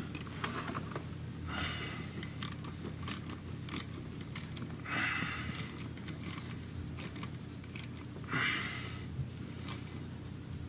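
Hand wrench tightening the bolt at the bottom of the air box on a Honda Rancher ATV: scattered metal clicks and clinks, with three short rasping bursts about two, five and eight seconds in, over a steady low hum.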